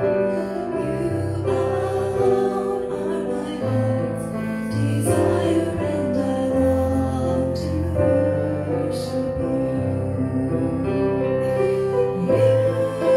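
A woman singing a slow worship song through a microphone over instrumental backing with held chords and a bass line.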